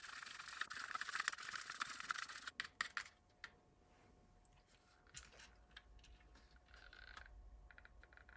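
Wooden stirring stick mixing two-part silicone gel in a small plastic cup, scraping and ticking against the cup's sides, stopping about three seconds in. Afterwards only a few faint clicks and light knocks.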